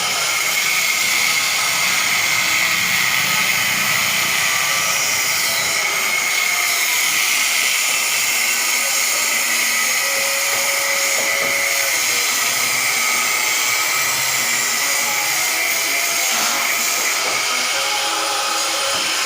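A machine running steadily, with a constant high-pitched whine over a strong hiss.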